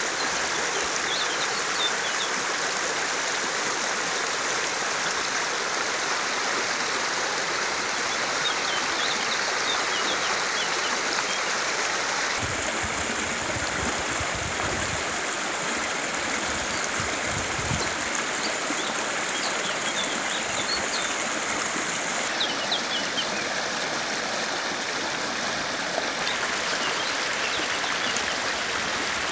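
Shallow river water running steadily over rocks, with small birds chirping a few times. A few low rumbles come in about halfway through.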